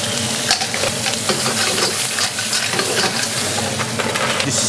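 Fresh mussels sizzling as they hit hot olive oil in a wok, with the shells clicking and clattering as more are dropped in by hand.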